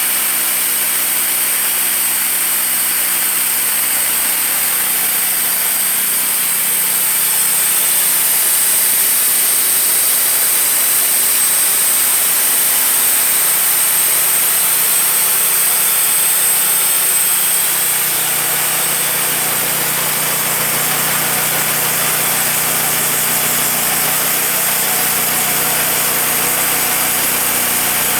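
Wood-Mizer portable band sawmill engine running steadily, with a shift in its low note about four seconds in and again near eighteen seconds.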